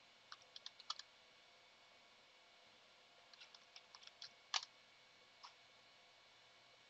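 Faint computer keyboard keystrokes: a quick run of four or five keys about half a second in, then a second run around three to four and a half seconds in ending in one harder key press, and a last single tap about a second later.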